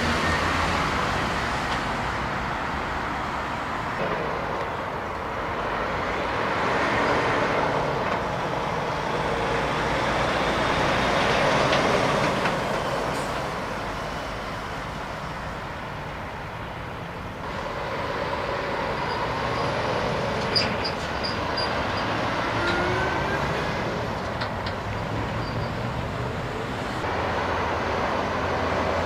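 Heavy trucks driving past one after another: diesel engines running, with tyre and road noise swelling and fading as each one passes. A single short knock sounds about twenty seconds in.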